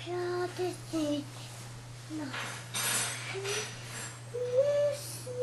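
A toddler's voice in short, high sing-song syllables, with a brief rustle around three seconds in.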